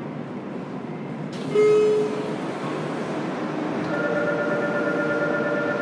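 Running noise heard inside the cabin of a JR Kyushu 303 series electric train's motor car. About a second and a half in, a short loud tone sounds for about half a second. From about four seconds in, several steady tones ride over the running noise.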